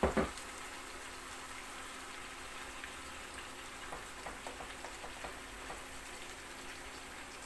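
Minced meat and tomato-sauced eggplant sizzling steadily in a frying pan. A glass jar knocks once as it is set down right at the start, and a few light taps of stirring come a few seconds in.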